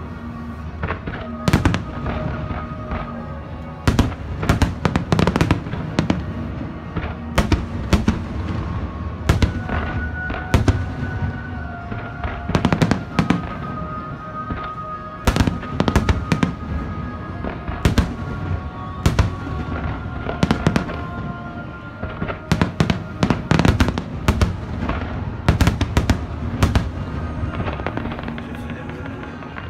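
Fireworks display: aerial shells bursting in dozens of sharp bangs, often several in quick succession, with music of long held notes playing underneath.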